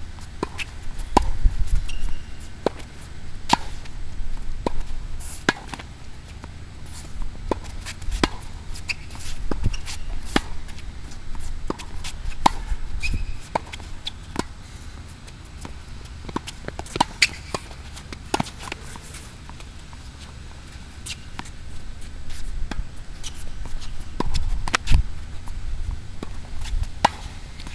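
Tennis ball struck with a racket and bouncing on a hard court in a rally: a string of sharp hits and bounces about every second or two, over a steady low rumble.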